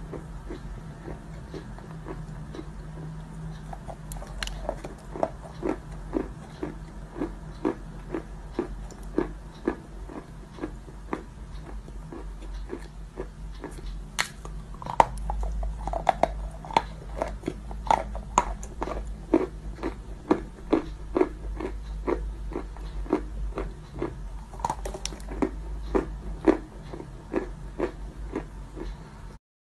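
Close-up biting and chewing of lumps of crunchy clay: sharp crunches about two a second.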